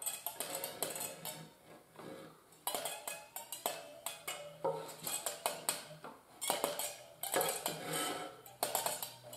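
A metal hand rasp scraped again and again across a taut monofilament fishing line, a weird-sounding series of rasping strokes about one to two a second. The line is under about 2 pounds of tension and is being worn through in an abrasion test.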